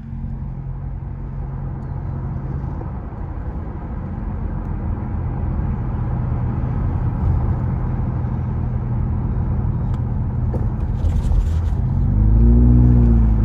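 Car running along a road, heard from inside the cabin: a steady low engine hum with tyre and road noise. Near the end it grows louder, and the engine note briefly rises and falls.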